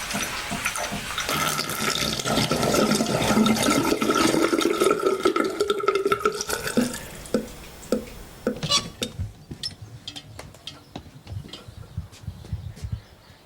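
Water running and gurgling, electronically processed so that two steady tones, one high and one low, ring through it; after about seven seconds it thins out into scattered drips and clicks that fade.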